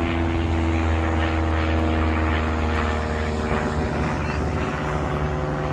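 A parked van's engine idling with a steady low hum that fades after about three seconds; a different, higher-pitched low hum comes in near the end.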